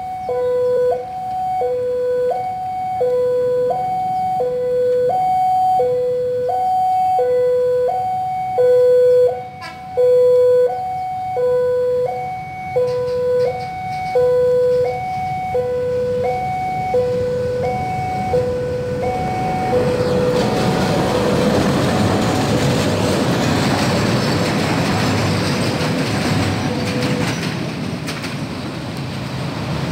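Railway level-crossing warning alarm sounding, a two-tone alternating electronic chime cycling about once a second. About two-thirds of the way through it fades under a steady, loud rushing noise.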